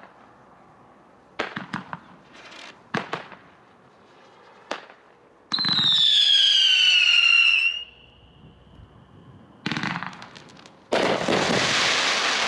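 A 500-gram, 42-shot consumer fireworks cake firing. Scattered sharp pops come in the first few seconds. About halfway through, a loud whistle falls in pitch for about two seconds. Near the end a loud, dense crackling break goes off.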